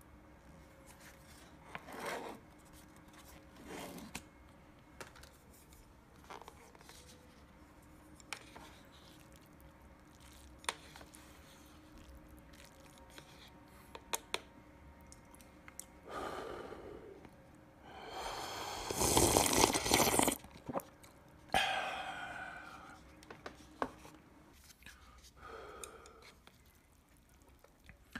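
Paper lid of a cup ramen peeled back, then wooden chopsticks stirring and tapping the noodles in the paper cup with scattered sharp clicks. About two-thirds through comes the loudest sound, a breathy rush of air lasting about two seconds, with shorter breaths just before and after.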